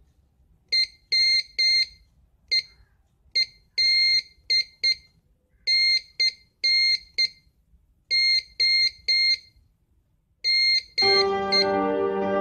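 High-pitched Morse code tone keyed on and off in short and long beeps, dots and dashes, of the kind a Morse practice oscillator sounds. Music comes in about eleven seconds in and covers the end.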